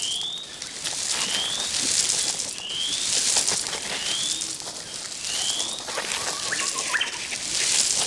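Outdoor ambience: a bird repeating a short rising whistled note about once a second, over a high hiss that swells and fades in waves. The bird stops about six seconds in, and a few light clicks follow.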